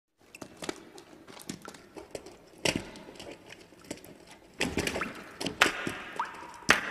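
Scattered knocks, taps and scuffs of a crowd's feet and loose debris on a wet concrete floor, busier around the middle and with a sharp click near the end. A brief rising tone comes about six seconds in.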